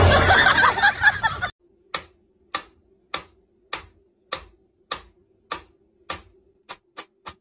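A pendulum metronome ticking, sharp clicks about every 0.6 s that come closer together, about every 0.3 s, near the end, over a faint steady hum. Before it, a loud, busy sound cuts off abruptly about a second and a half in.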